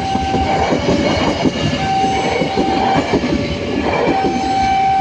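A train rolling past over the level crossing, its wheels clacking over the rail joints. Over it the crossing's electronic warning siren sounds, alternating between a higher and a lower tone about every second.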